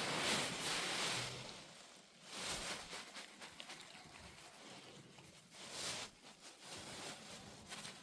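A Central Asian Shepherd dog snoring in its sleep: long, breathy snores a few seconds apart, the first and loudest lasting about two seconds.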